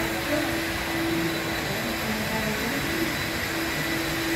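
Floor-cleaning machine running with a steady motor hum and hiss.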